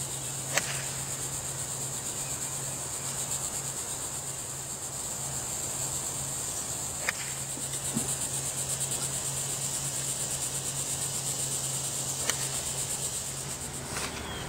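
Steady high-pitched chorus of insects in the trees. Under a second in, a golf club cracks against a ball off the tee, and two more sharp clicks follow later.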